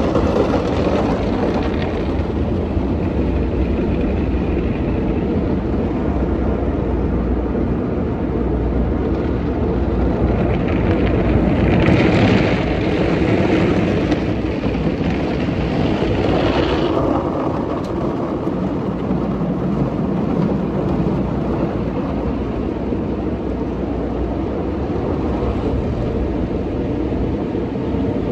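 Automatic car wash heard from inside the car: a steady rush of water spray and wash machinery running against the body and windows, muffled by the cabin. From about 11 to 17 seconds in, a stronger, hissier spell of spray.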